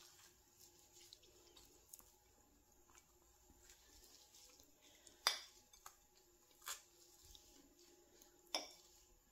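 Quiet room with scattered faint ticks and three louder sharp clicks, about five, six and a half and eight and a half seconds in: cutlery and plate sounds while the pastry is being eaten.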